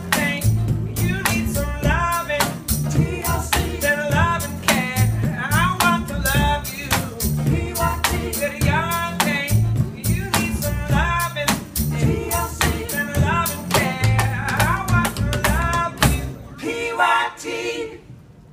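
Live acoustic trio playing: upright bass and acoustic guitars under a lead vocal, with a steady percussive click beat. The song ends near the end, the music dropping away.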